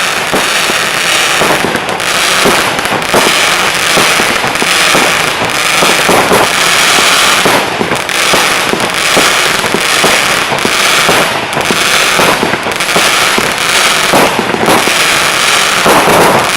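Berlin Saga 75-shot fireworks battery firing continuously: a dense, rapid stream of shots and bursts over a steady hiss, loud throughout.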